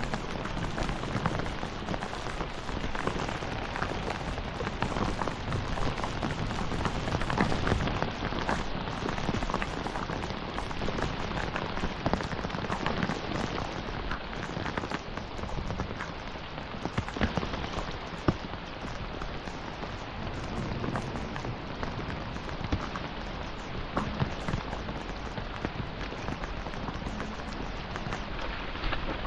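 Steady rain falling, a dense patter of drops with scattered sharper ticks of individual drops striking close by.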